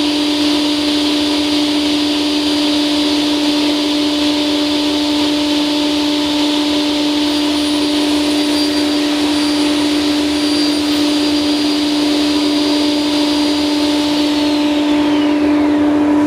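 Felder Hammer K3 Winner sliding table saw running steadily: a strong even hum with hiss and a high whine. Near the end the high whine drops in pitch, then the sound cuts off abruptly.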